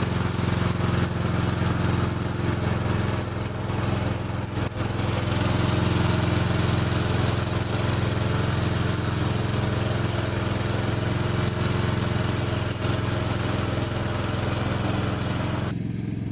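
Remote-control lawn mower running steadily, an even engine drone with no change in speed.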